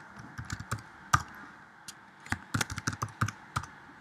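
Computer keyboard typing: two short runs of keystrokes, each ending with a single sharper key press, as two words are typed and entered.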